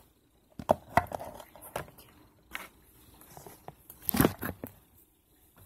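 Handling noises on a tabletop: a few knocks and taps, then a louder rustling scrape about four seconds in as the camera is picked up and moved.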